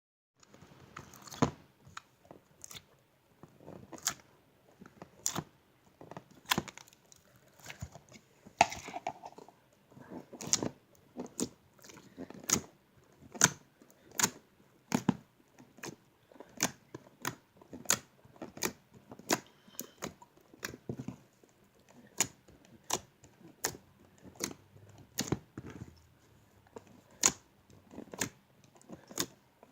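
Slime being squeezed and poked by hand, giving sharp, irregular pops and clicks about once or twice a second, with soft squishing between them.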